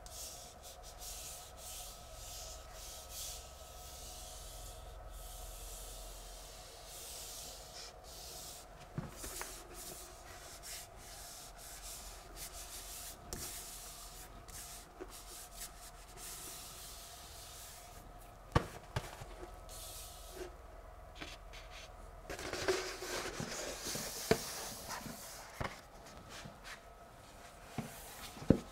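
Pasted paper backscene being rubbed and smoothed against a wall by hand: a faint rubbing and rustling of paper, with a single sharp tap about two-thirds of the way through and busier handling of the stiff rolled sheet in the last few seconds.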